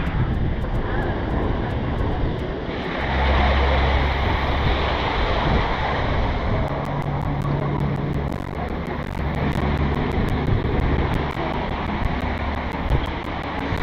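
Wind buffeting the microphone: a steady rushing noise, with heavier low rumbling that sets in about three seconds in and comes and goes.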